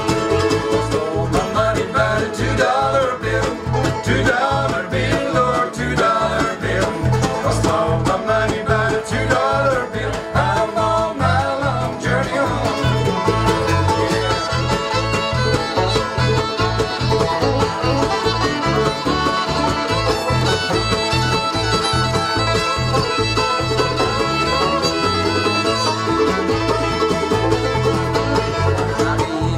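Live acoustic bluegrass band playing an instrumental break: fiddle carrying the lead over banjo, guitar and mandolin rhythm, with the bass keeping a steady beat.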